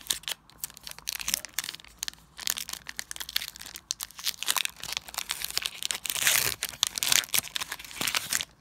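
Foil booster-pack wrapper being torn open and crinkled by hand: a dense run of sharp crackles, loudest in a longer rip about six seconds in, stopping suddenly near the end.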